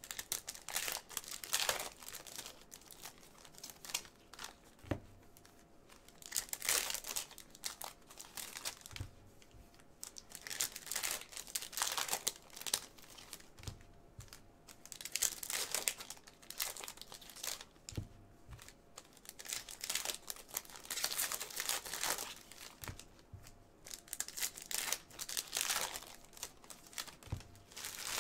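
Plastic-foil trading-card pack wrappers crinkling and tearing as packs are opened and handled, in repeated bursts of rustling with a few short soft knocks between them.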